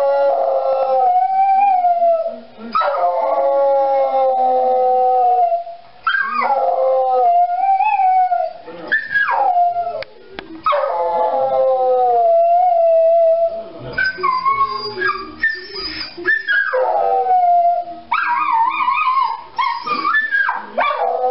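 A dog howling: a string of about seven long howls, each held for a couple of seconds and wavering or sliding in pitch, with short breaks between them.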